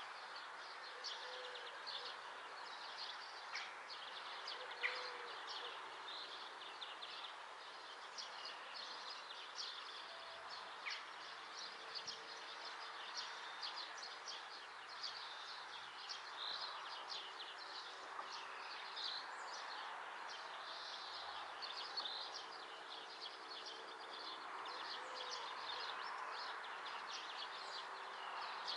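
Small birds chirping: many quick, high chirps in close succession, over a steady rushing background noise.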